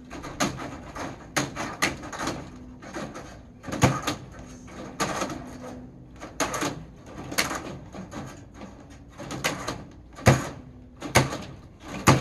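Hand snips cutting through chicken wire: a series of sharp metallic snips, about one a second, as the blades close on each strand.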